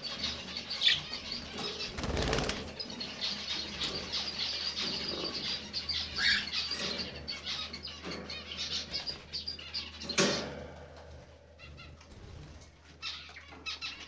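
Exhibition budgies flapping their wings in a wire cage as a hand tries to catch one, in irregular bursts of fluttering. The loudest bursts come about two seconds in and again about ten seconds in.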